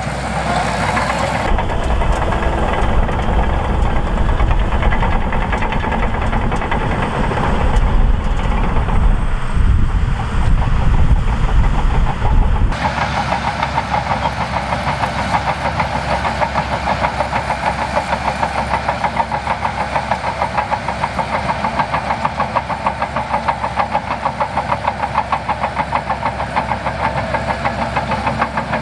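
Diesel engine of a Shantui DH17C2 bulldozer running while it works, with a heavy low rumble. About 13 s in the sound changes abruptly to a steadier, rapidly pulsing engine note.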